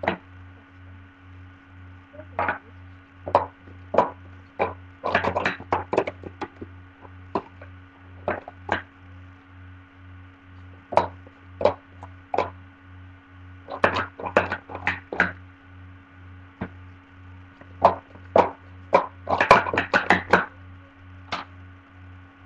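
Plastic sport-stacking cups being rapidly stacked up into pyramids and knocked back down into stacks, a quick clatter of cups clacking against each other and the table in three runs. A steady electrical hum sits underneath.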